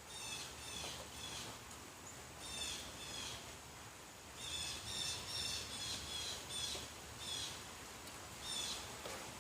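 A bird calling again and again: short, high, falling notes in clusters of two to four, over the steady hiss of rain.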